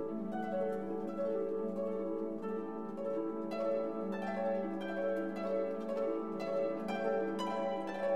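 Background instrumental music: short plucked notes over sustained held notes.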